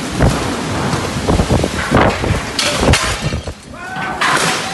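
Tornado winds and heavy rain, with a run of loud bangs and thuds as debris is flung about, and gusts of hissing wind about three and four seconds in.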